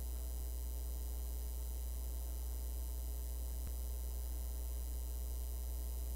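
Steady low electrical mains hum in the recording's audio input, with fainter higher overtones above it; one faint click a little past halfway.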